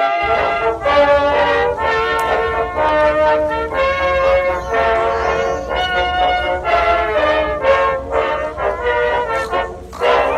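Brass-led music, trombones and trumpets playing a slow melody of held notes over a low steady rumble.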